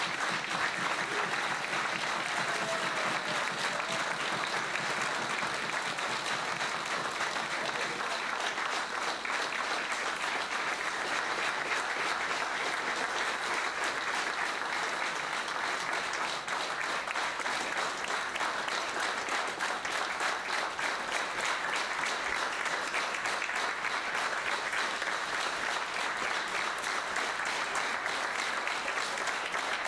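Small crowd applauding steadily and without a break: a minute of applause, the lucha libre tradition for honouring someone who has died.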